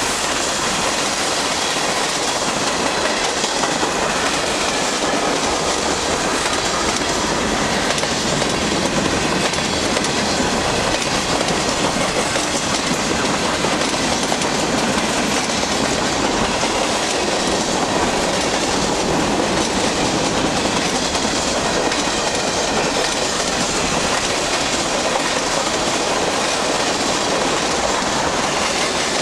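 Freight cars of a long mixed freight train rolling past close by: a steady, loud noise of steel wheels on the rails that holds without a break.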